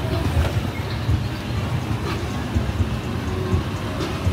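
Motor scooters riding past close by on a street, over a low, steady rumble of traffic.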